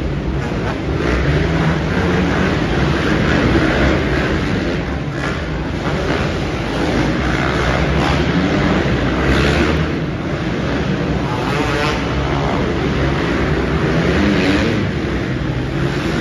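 A pack of 450-class motocross dirt bikes racing round an indoor arenacross track, several engines revving up and falling off as the riders take the jumps and corners.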